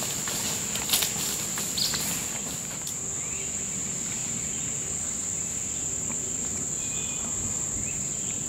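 Steady, high-pitched drone of a chorus of insects in the woods, unbroken throughout, with a couple of light clicks in the first two seconds.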